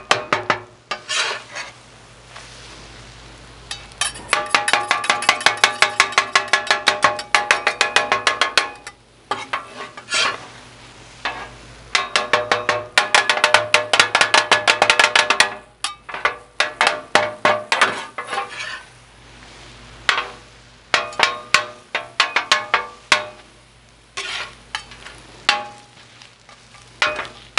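A wide steel chopping blade striking the Blackstone griddle's steel cooktop over and over as it chops scrambled eggs: rapid metallic clacks, about five a second, each with a short ring. They come in runs of a few seconds with brief pauses between.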